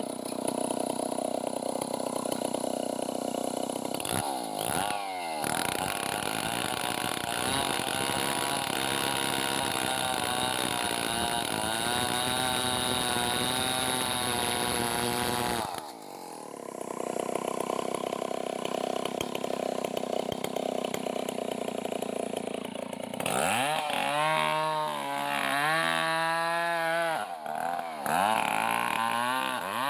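Two-stroke chainsaw cutting into a felled log at high revs, engine note holding under load. It drops off briefly about halfway through, then picks up again, and near the end is revved up and down several times in quick succession.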